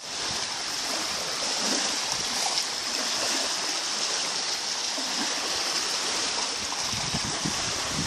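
Small wind-driven waves lapping and washing onto a pebble lakeshore, a steady hiss of moving water. Some low wind buffeting on the microphone comes in near the end.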